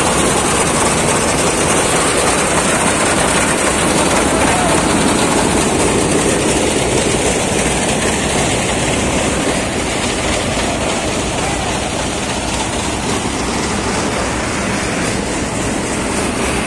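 Motorised paddy thresher running steadily with a dense mechanical clatter as rice is threshed. It drops a little in level about ten seconds in.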